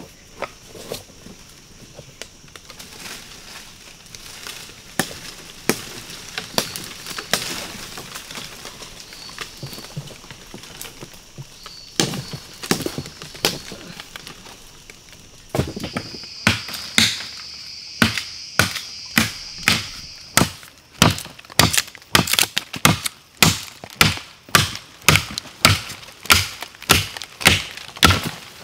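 A tool striking repeatedly: scattered knocks at first, then from about halfway a steady chopping rhythm of about two strikes a second. Insects chirr steadily and high in the background.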